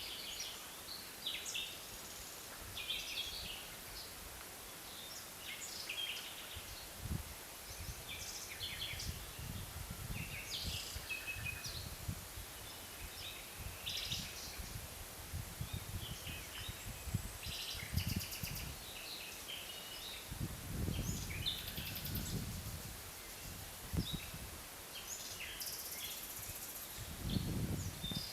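Forest ambience: several small birds chirping and calling in short, scattered phrases, with low rumbling gusts of wind now and then, strongest near the middle and near the end.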